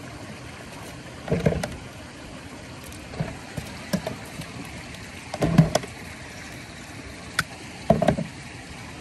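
Water splashing and sloshing in a plastic tub as a trout is grabbed by hand, in several short splashes with a sharp tap near the end, over a steady rush of flowing water.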